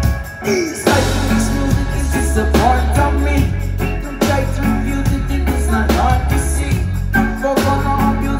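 Live reggae-rock band playing loud, with electric guitar, keyboard, drums and a heavy bass line. The band drops out for a moment just after the start and comes back in about a second in.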